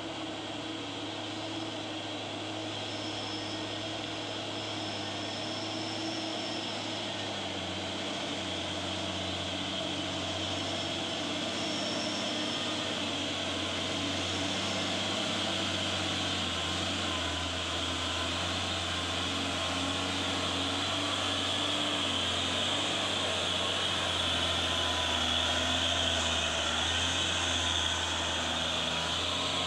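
Diesel engine of a loaded Mitsubishi Fuso truck pulling steadily up a steep dirt incline, growing gradually louder as the truck draws near.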